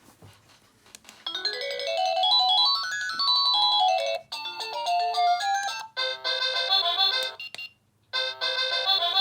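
Wireless doorbell receiver playing electronic chime tunes: a quick run of notes up the scale and back down, then two more short melodies, with a brief pause near the end before another tune starts.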